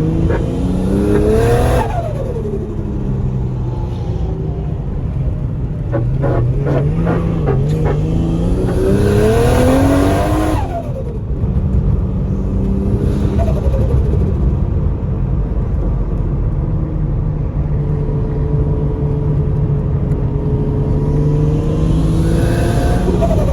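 Turbocharged RB25 straight-six in an R33 Skyline pulling hard. Its pitch climbs under boost and drops sharply when the throttle is lifted, three times: about two seconds in, about ten seconds in, and near the end. Each lift-off brings a short burst of hissing turbo flutter, and the engine cruises more steadily in between.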